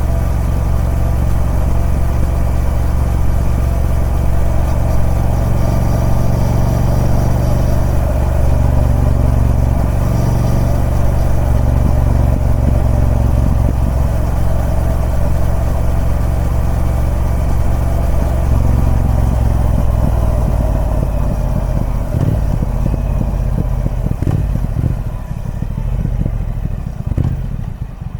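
Triumph Speed Twin 1200's parallel-twin engine through its stock exhaust, running at steady revs, then slowing from about twenty seconds in. As the revs drop toward idle near the end, the individual firing pulses can be heard.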